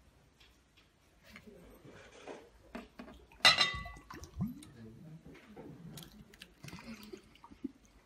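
Thick blended juice glugging and splashing as it is poured from glass jars into glass bowls. About three and a half seconds in, a sharp ringing clink of glass on glass is the loudest sound.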